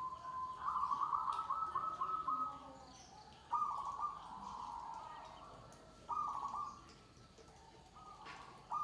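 Zebra dove (perkutut) cooing: rippling, stuttering coo phrases that start about every two and a half seconds, four times.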